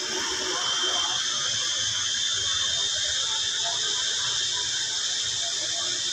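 Cicada calling: a loud, steady, high-pitched shrill buzz.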